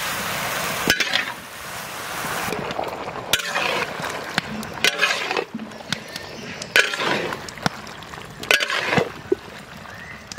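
A long metal spatula scrapes and clinks against a large metal kadai as cauliflower, broccoli and potato pieces are stirred and fried in spice paste. The frying sizzles, loudest in the first couple of seconds.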